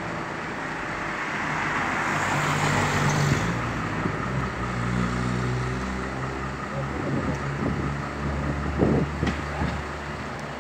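A knuckle-boom crane truck's engine running with a steady drone that rises in pitch about three and a half seconds in, under a hiss early on. A few short knocks come near the end.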